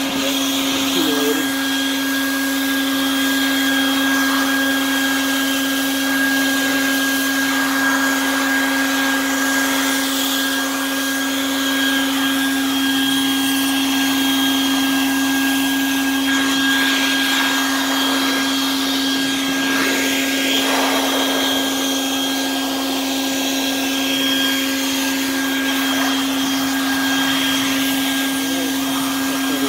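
Vacuum cleaner used as a blower, running steadily: an even motor whine over a rush of air as it blows dirt out of a radiator core's fins.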